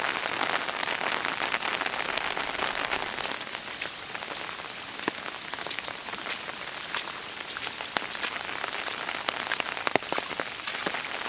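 Steady rain falling on an umbrella overhead, a dense hiss with many individual drops ticking sharply; it eases slightly about three seconds in.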